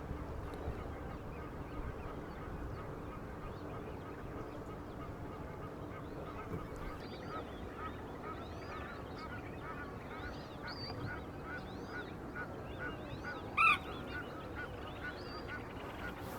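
Flamingos giving goose-like honking calls, many short calls overlapping from about six seconds in, with one louder honk near the end, over a steady background rush.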